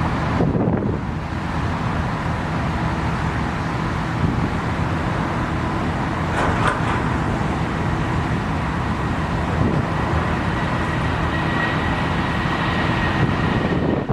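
Jet airliner engines running with a steady roar and low hum, a thin high whine coming in during the second half.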